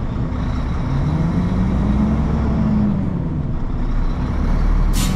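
Heavy truck's diesel engine pulling away, heard from inside the cab: a steady low rumble whose revs climb and then drop back midway. A guitar strum comes in right at the end.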